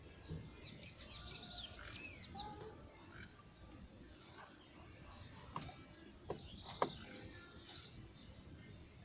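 Small birds chirping and twittering in quick, high, overlapping calls. A loud, high whistled note comes about a third of the way in, and a couple of sharp clicks come about two-thirds of the way through.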